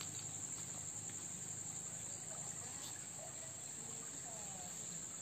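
Steady, high-pitched chirring of insects in the undergrowth.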